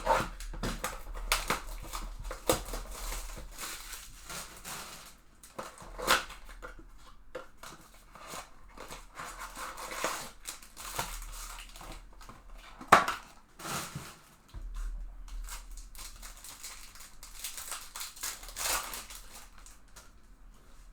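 Trading card packs from a blaster box being torn open and handled: foil wrappers crinkling and ripping, with irregular clicks and rustles of cardboard and cards. A sharp crack about 13 seconds in is the loudest sound.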